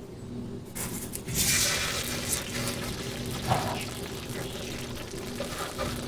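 Water pouring, starting about a second in and strongest soon after, with a steady low hum underneath.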